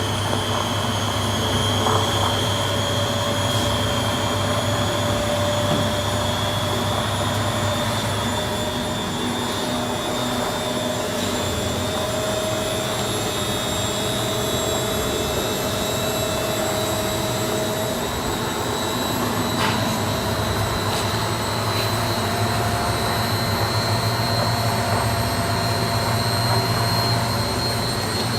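Beko D5 7101 washing machine spinning, with a steady whine and rush whose pitch rises slowly as the drum speeds up. Its drum bearings and seal have just been replaced.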